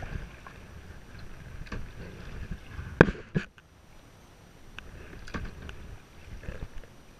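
Kayak on the water: a low rumble of water and wind with scattered knocks, likely a paddle or gear against the hull. Two sharp, loud knocks come about three seconds in, close together.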